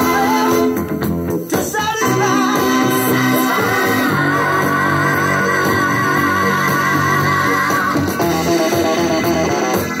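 Guitar-led music played through the speakers of a 1984 Uher Power Port 2 compo system, its original 4-inch drivers replaced by new Panasonic coaxial drivers and its original tweeters disabled. A held, wavering melody line runs over steady bass notes.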